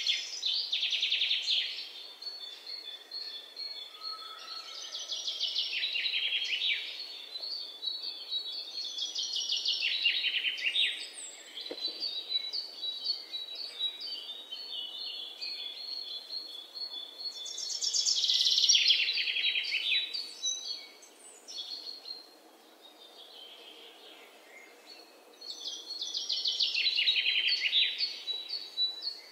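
Songbird singing: repeated descending trills every few seconds, with steady high whistled notes between them.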